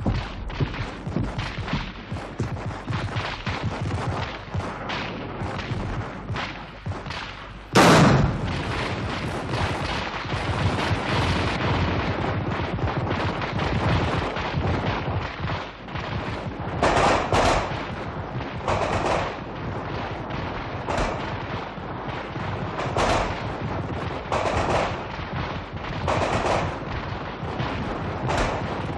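Heavy, continuous gunfire from many guns, shots crackling over one another, with one much louder blast about eight seconds in.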